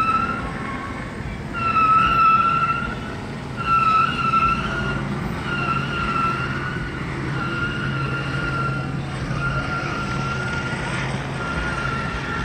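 Siren sounding a single held tone over and over, each note lasting about a second with about a second's gap, growing fainter, over a low steady hum.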